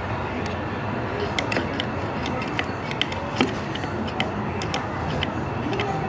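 Scattered small clicks and ticks from a screwdriver and the plastic housing of a fan being handled during disassembly, over a steady background hiss.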